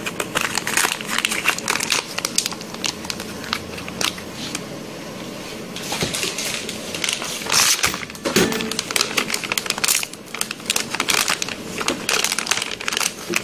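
Clear plastic vacuum bags crinkling and rustling as they are handled, in irregular clusters of crackles.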